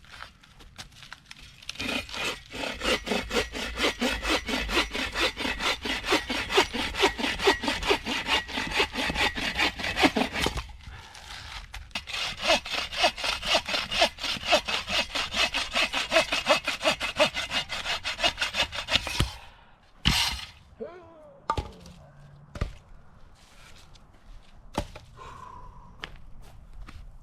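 Hand saw cutting through a length of firewood with quick, even back-and-forth strokes, in two long runs with a brief pause between. Near the end the sawing stops, followed by a sharp crack and a few light knocks of wood.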